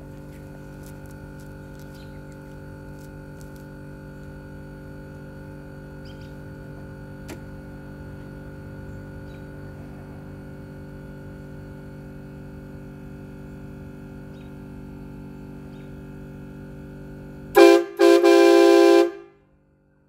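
Horn Dogz train horn kit sounding a loud multi-note chord near the end: one short blast, then a second blast of about a second that cuts off sharply. Before it a steady hum runs.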